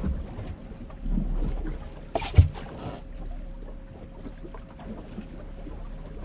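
Wind buffeting the microphone and rough water against a Lund 1875 Impact fishing boat in big waves, with one sharp loud knock about two and a half seconds in.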